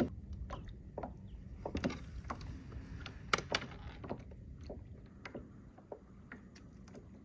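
Scattered small clicks and taps from hands working fishing tackle while rigging a live shrimp on the hook, over a low steady rumble of wind and water around a plastic kayak. The sharpest click comes about three and a half seconds in.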